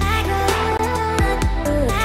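Electronic background music with a heavy bass and synth notes that slide down in pitch.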